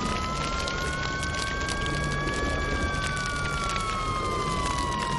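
Emergency siren sound effect, a slow wail rising in pitch for about two seconds and then falling, with a second, nearly steady siren tone alongside it. A steady crackling hiss runs underneath.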